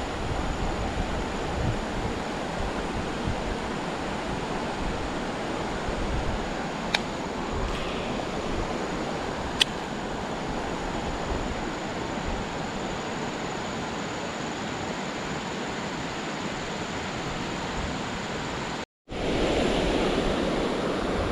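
Steady rush of water from a stream at a waterfall, with two sharp clicks about two and a half seconds apart near the middle. The sound cuts out for a moment near the end and returns slightly louder.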